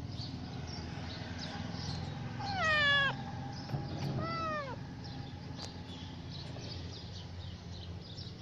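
A young tabby-and-white street kitten meowing twice: a louder call that rises and falls, about two and a half seconds in, then a shorter falling one about a second later.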